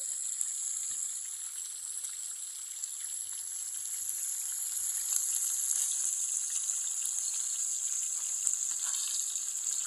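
Whole tilapia sizzling and crackling in hot oil in a skillet on a portable gas camp stove, a steady frying hiss that grows a little louder about five seconds in.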